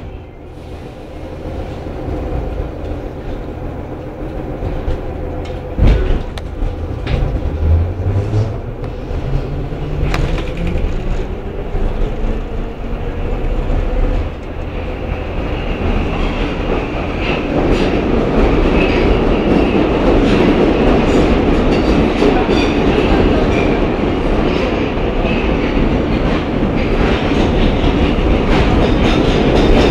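Budapest Metro line 2 train heard from inside the car as it pulls away from a station: the traction motors' whine rises in pitch as it accelerates, with a single knock a few seconds in. From about halfway, a louder steady rumble and clatter of the wheels on the rails as it runs at speed through the tunnel.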